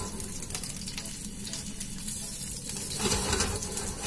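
A block of bluefin tuna sizzling in hot oil in a frying pan as it is seared, nudged around the pan so it doesn't stick; the sizzle gets louder about three seconds in.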